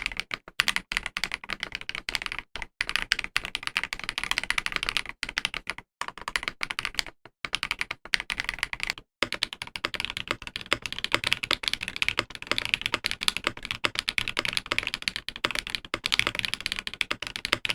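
Fast typing on a mechanical keyboard fitted with KiiBOOM Emerald linear switches, which are factory-lubed and have all-polycarbonate housings and 20 mm springs. It is a dense stream of key clacks with a few brief pauses.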